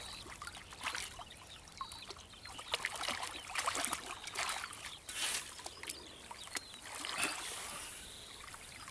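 Shallow water splashing and trickling as a set net holding eels is worked by hand in knee-deep water, with many small, sharp splashes scattered throughout.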